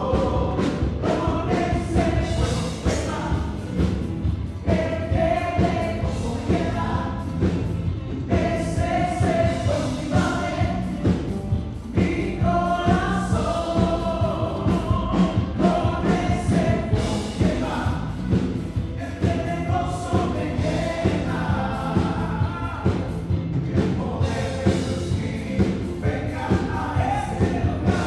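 Worship band playing a Spanish-language worship song: several voices singing together over stage piano and synth keyboards, with a steady beat.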